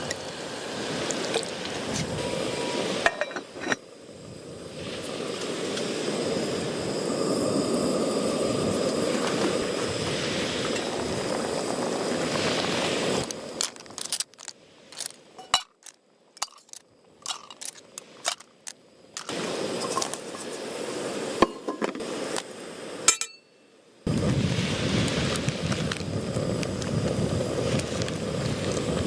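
Light clinks of camp cookware, about ten separate sharp strikes over several seconds in the middle, set between stretches of steady rushing noise with scattered ticks.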